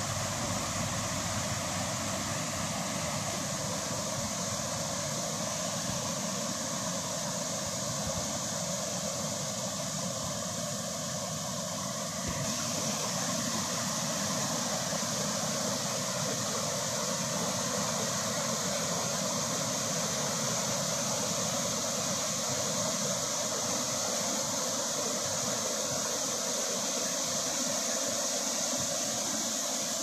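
Shallow stream cascading over rocks: a steady rush of water, a little louder from about twelve seconds in.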